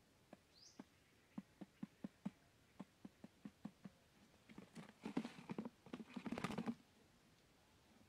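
A quail pecking at the paper cover of a pit trap: a run of faint, quick taps, then a louder rush of scuffling and rustling as the paper gives way and the bird drops into the hole.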